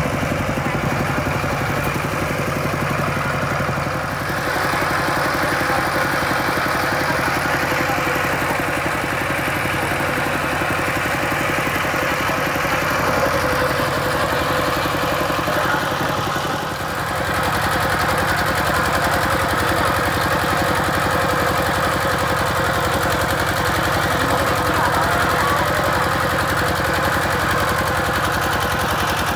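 Single-cylinder diesel engine of a two-wheel walking tractor running steadily as it pulls a loaded trailer, with a rapid, even chugging. The sound drops briefly about halfway through, then carries on.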